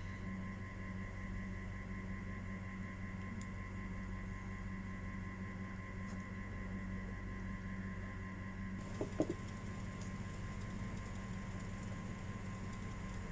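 A steady hum with several held tones, and two or three quick knocks about nine seconds in.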